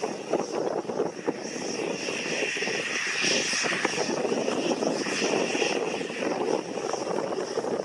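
Single-engine propeller plane running at idle on the ground, its propeller turning, a steady dense engine noise with a higher whine that swells in the middle and eases off near the end.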